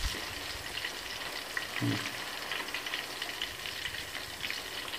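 Whole quails deep-frying in hot oil over a low flame: a steady sizzle with fine, dense crackling.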